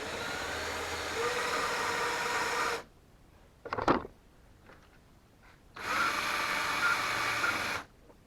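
DeWalt cordless drill boring into a wooden rake handle in two runs of about three and two seconds, with a short knock between them. The bit is struggling, which the user puts down to very hard wood or metal in the hole.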